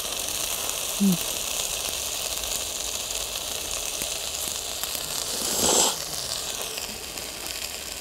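Person eating spaghetti with chopsticks: a short noisy slurp of the noodles about five and a half seconds in, over a steady hiss.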